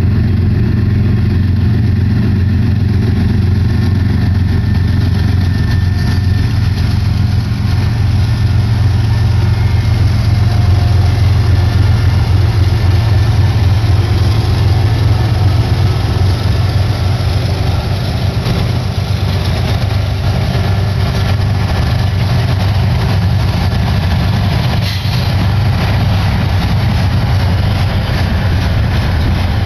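The three lead diesel-electric locomotives of a Union Pacific freight, two GE units and an EMD SD70ACe, running loud under power with a deep, steady engine drone as they approach and pass close by. From about eighteen seconds in, the engine sound gives way to the rumble of flatcars' steel wheels rolling past on the rails.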